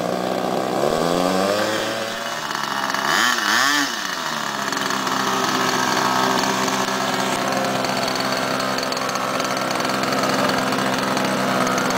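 Small combustion engine of an RC model tow plane running; its revs rise and fall, swing up and down quickly about three seconds in, then it settles to a steady idle.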